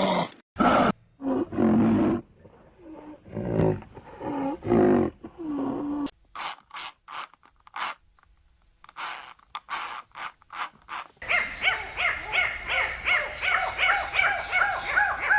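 Animal calls: a few short pitched calls, then a stretch of sharp clicks, then a fast run of repeated high calls, about three or four a second, starting about two-thirds of the way in.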